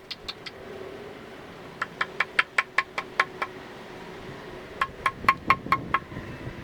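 Three runs of sharp, slightly ringing taps, about five a second: a short run at the start, a longer one a couple of seconds in, and another near the end.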